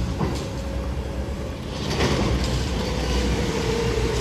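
Steady low rumble of engines from the demolition machinery and passing road traffic, growing louder about halfway through.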